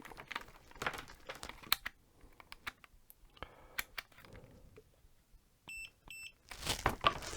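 Light handling clicks and crinkling, then two short high beeps about half a second apart from a digital multimeter being set to continuity mode, followed by a loud rustle of handling near the end.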